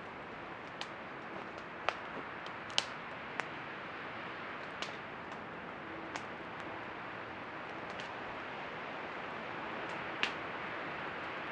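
Small campfire of sticks crackling, with scattered sharp pops, the loudest about two and three seconds in and another near the end, over a steady hiss.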